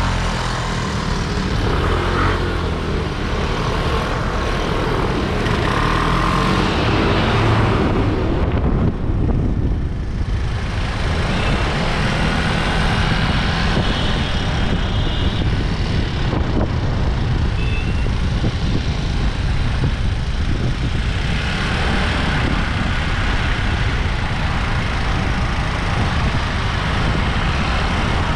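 Scooter riding along a road: steady wind rush on the microphone mixed with engine and tyre noise.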